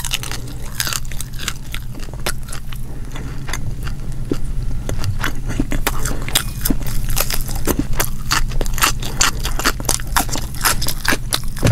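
Close-miked eating sounds: fried fish being chewed with many sharp wet mouth clicks and smacks, getting busier about halfway through, then a raw cucumber slice bitten and chewed near the end. A steady low hum runs underneath.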